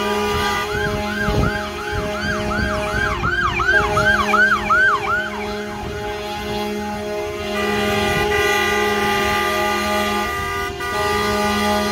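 Semi-truck air horns blaring in long held tones. Over them, for the first five seconds or so, a siren whoops in fast rising-and-falling yelps, about three a second.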